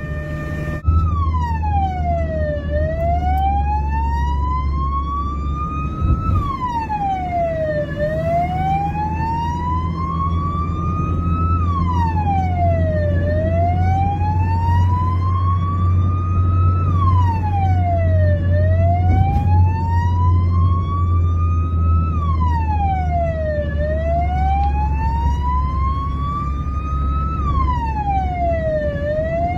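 Spanish ambulance's electronic siren sounding a slow wail: the pitch drops quickly and climbs back more slowly about every five seconds, over a steady low rumble. It cuts in about a second in.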